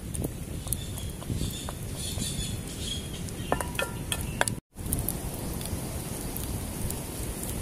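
Outdoor ambience with scattered sharp clicks and a few short high chirps, then, after a brief gap, a wood fire burning with a steady crackle and hiss.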